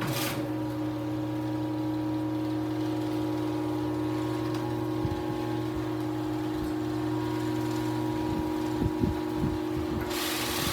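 Genie garage door opener's motor running steadily as it drives the door down, a constant hum. There are a few low knocks near the end, and a hiss joins just before the end.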